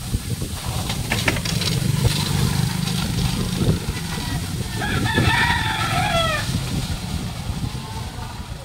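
A rooster crows once, about five seconds in, a single call that drops in pitch at its end. Under it runs a steady low engine rumble.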